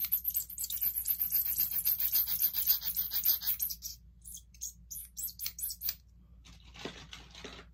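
Zero-G Beyblade ripcord being worked through its launcher: a rapid run of plastic ratcheting clicks for about three and a half seconds, then a few scattered clicks.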